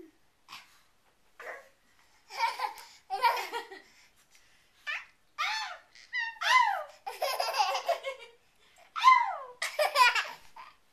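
A baby laughing in short bursts, with high squeals that slide up and down in pitch. The laughs grow longer and louder from about halfway through.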